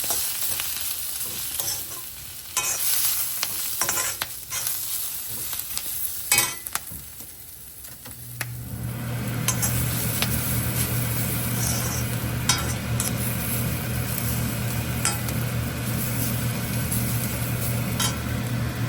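A spatula stirring and scraping onions and ground spices as they fry in oil in a pan, with sizzling and sharp clicks against the pan. About eight seconds in, a steady low machine hum starts and continues.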